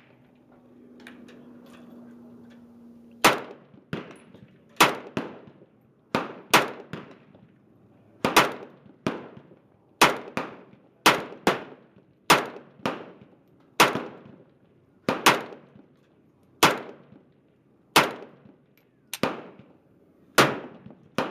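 Romanian AK-47 rifle fired in single shots, about fifteen sharp reports spaced roughly a second apart, starting about three seconds in. Some shots are followed closely by a fainter second report.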